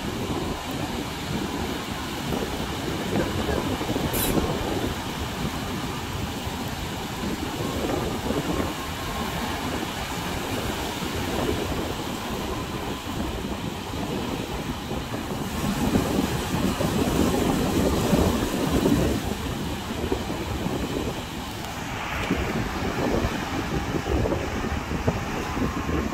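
Wind buffeting the microphone over the rumble of surf breaking on the beach, a rough, gusting noise, with a single click about four seconds in.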